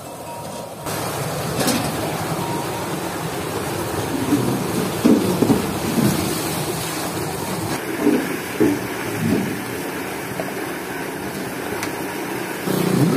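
Water rushing and splashing through the turning metal paddles of a bull-driven jhatta water-lifting wheel, with a few louder splashes or knocks between about four and nine seconds in. The sound gets louder near the end.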